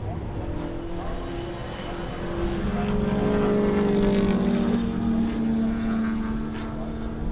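Several Sports Sedan race cars passing at speed in a pack, their engines running at high revs as overlapping tones that shift in pitch. The sound builds to its loudest about three to four seconds in, then eases as a following car comes through.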